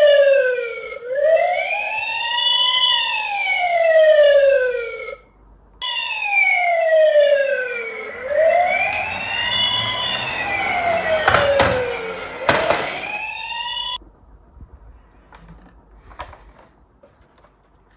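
Wailing siren sliding slowly down and up in pitch, broken off briefly about five seconds in and stopping abruptly about fourteen seconds in. Partway through, a rumbling clatter with two sharp knocks plays under it, and only faint clicks follow the siren.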